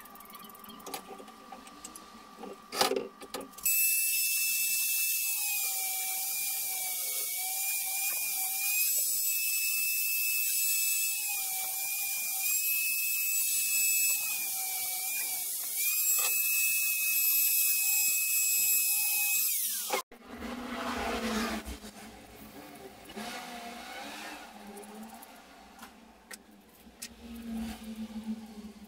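Angle grinder with a cut-off disc cutting a threaded steel rod clamped in a vise: a high whine starts about four seconds in, sags in pitch several times under load, and stops abruptly around twenty seconds in. Light metal handling sounds come before and after as the rod and nuts are handled.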